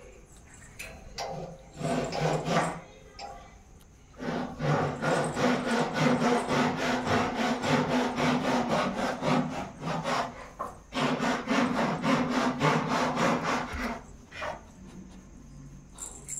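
Dog growling in play, a rasping, rapidly pulsing growl in two long stretches broken by a short pause, after a couple of brief growls near the start.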